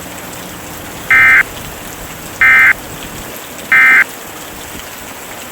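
Emergency Alert System end-of-message signal: three short, loud digital data bursts about a second and a half apart, over a steady background hiss.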